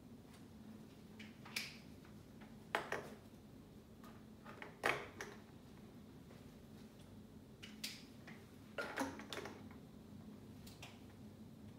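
Scattered light clicks and taps, about eight at irregular moments, over a faint steady hum of room tone: handling and movement noise from a person at a glass lecture board.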